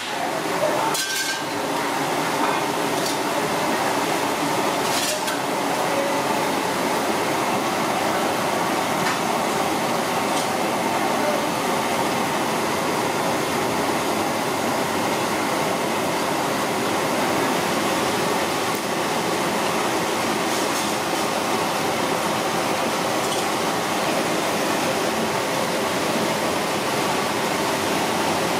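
Dishes and cutlery clinking over a steady, even hiss, with a couple of sharper clinks about a second and five seconds in.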